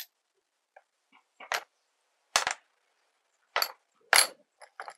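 Metal parts of a mountain-bike rear shock absorber and a steel screwdriver clinking and knocking together while the shock is taken apart for cleaning: a handful of sharp, separate clinks, the loudest about two and a half and four seconds in.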